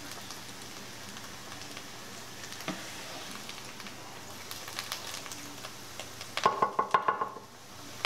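Battered chicken of the woods mushroom pieces frying in a skillet of grease with a steady, even sizzle. Near the end comes a quick run of sharp metallic clinks, a utensil knocking against the pan as the pieces are turned.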